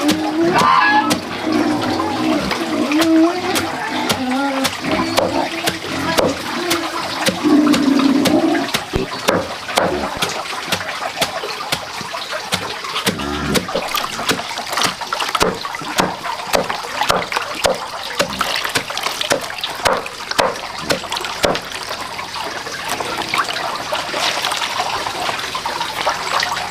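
Water splashing and trickling in quick, irregular small splashes. A low pitched sound runs along with it over the first eight seconds.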